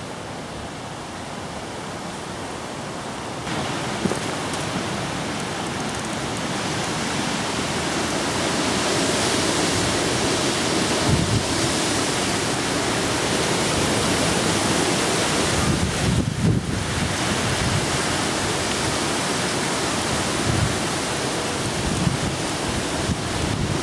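Strong wind blowing in gusts, swelling and easing, with low rumbling buffets on the microphone.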